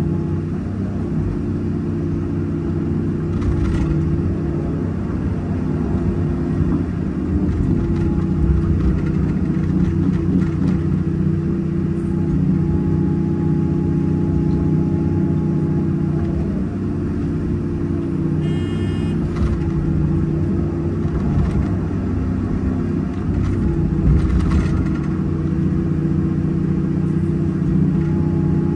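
Hyundai 330 excavator's diesel engine and hydraulics running steadily under load through the dig, swing and dump cycle, heard from the cab, with a few brief louder noises of soil and bucket work.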